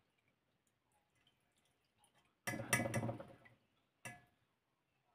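A metal wire spider strainer clattering against a pot while cooked chicken livers are drained of their sauce. There is a cluster of knocks and dripping about halfway through, then one more knock about a second later.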